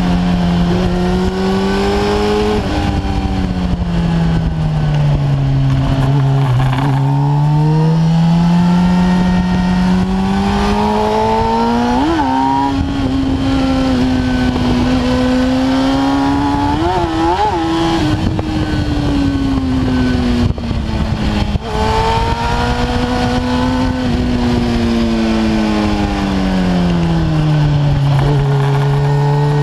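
Kawasaki ZX-10R's inline-four engine heard from onboard while riding, its pitch rising and falling slowly with the throttle, with two brief sharp revs near the middle. A steady rush of wind noise lies over the engine.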